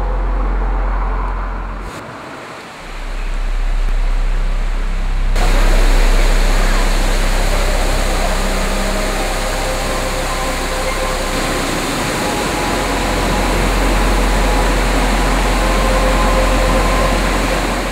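Steady hiss of rushing water from a rainforest waterfall and rocky stream, cutting in abruptly about five seconds in. It runs over a sustained low ambient music drone.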